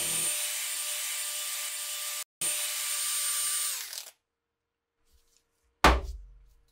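A DeWalt cordless drill with a step drill bit runs steadily with a motor whine as the bit works against a steel cleaver blade. The sound cuts out abruptly for a moment about two seconds in, runs again, then winds down and stops. Near the end comes a single sharp knock as the drill is set down on a wooden tabletop.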